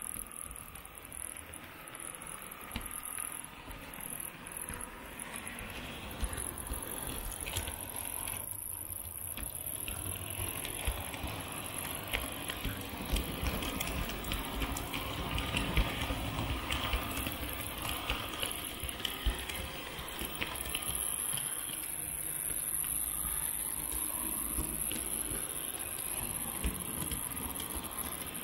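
H0 model train carrying a camera rolling along the track: wheels rattling and clicking over the rails, with a faint steady high whine.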